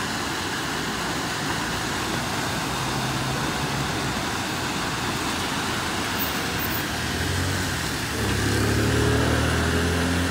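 Steady rush of a rain-swollen, muddy creek in flood. About seven seconds in, a motor vehicle's engine hum comes up and stays loudest to the end.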